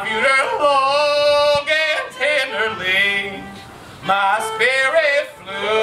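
A song with a man singing long, wavering held notes over light instrumental backing.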